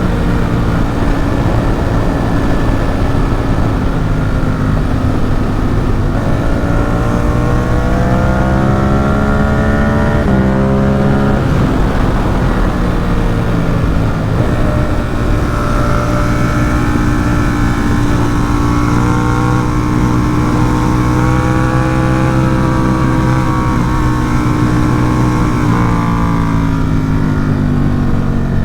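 Ducati Supersport 950 S's V-twin engine through a Competition Werkes race exhaust, heard from the rider's position with wind rush. The revs climb about six seconds in, drop sharply with an upshift around ten seconds, and climb again. The engine then holds a steady cruise, and the revs fall away near the end.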